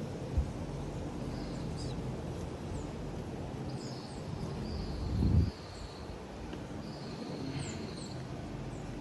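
Small birds chirping and whistling over a steady low mechanical hum, with a brief low rumble about five seconds in.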